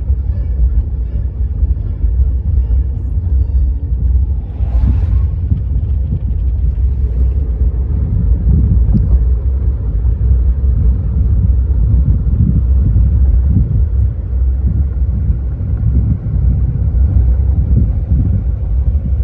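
Loud, uneven low rumble throughout, with faint music fading out in the first few seconds and a short hiss about five seconds in.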